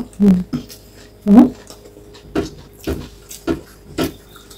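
Close-up eating sounds: irregular lip smacks and chewing of a mouthful of rice and boiled egg, with a couple of short hums in the first second and a half.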